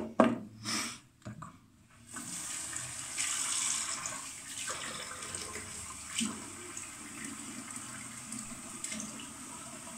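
Bathroom tap running into a sink, starting about two seconds in and flowing steadily, with a few small splashes as a face is washed under it.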